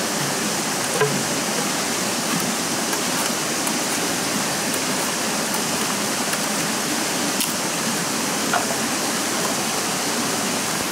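Shallow rocky stream rushing steadily over stones, with a few faint clicks about a second in and twice more near the end.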